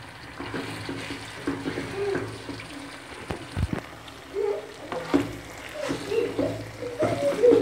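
Metal slotted spoon stirring thick beef masala in a kadai, scraping against the pan in irregular strokes, with a single dull thump about three and a half seconds in.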